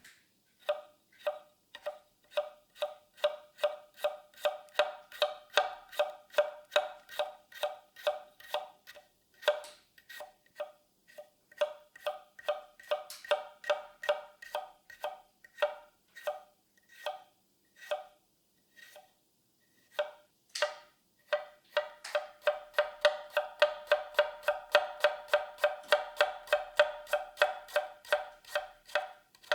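Kogatana knife chopping a radish, its blade striking a cutting board in quick, even knocks, each with a short ring. The knocks run about three a second, break off briefly twice, and quicken to about four a second over the last third.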